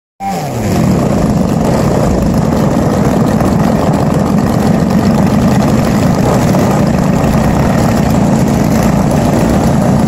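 Engines of giant-scale RC aerobatic model planes running steadily and loudly on the ground.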